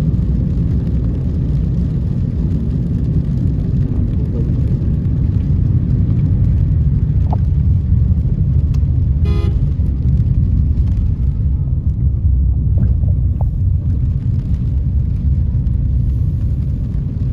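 Steady low rumble of a vehicle driving on a waterlogged road, engine and road noise without let-up, with one brief sharp sound about nine seconds in.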